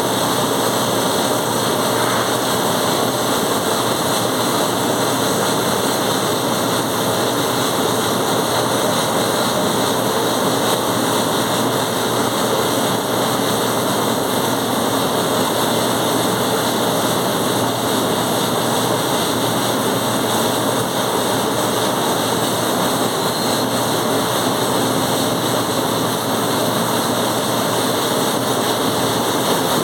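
Continuous welding noise: a loud, even hiss that holds steady with no breaks.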